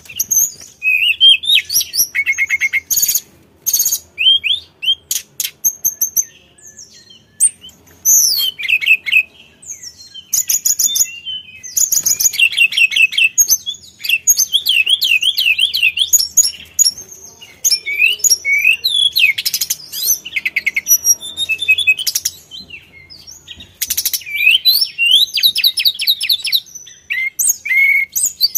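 Hill blue flycatcher singing in full voice. A fast, varied song of clear whistles, rapid trills and chattering, sweeping phrases runs on with only short pauses between them.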